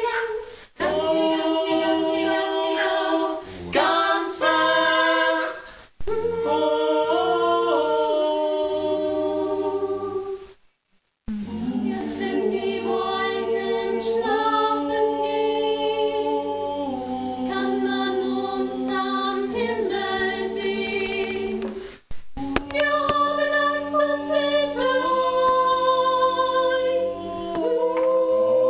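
A cappella choir singing sustained chords in several-part harmony, the chords changing step by step, with short breaks between phrases.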